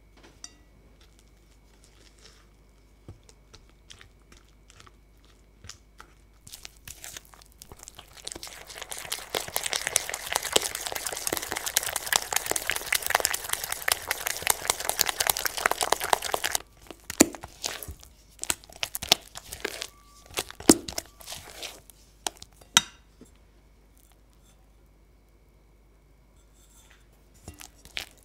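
Silicone spatula working egg into creamed butter, sugar and honey in a glass bowl for pound cake batter. A few soft scrapes and taps come first, then about eight seconds of fast, continuous beating with wet scraping and clicking. Slower single stirring strokes follow, then a pause, and stirring starts again near the end.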